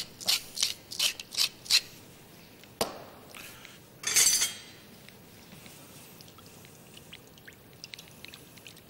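Pepper mill being twisted over a bowl: a quick run of about six grinding crunches in the first two seconds. A short rushing noise follows about four seconds in, then faint light ticks of a utensil stirring the dressing near the end.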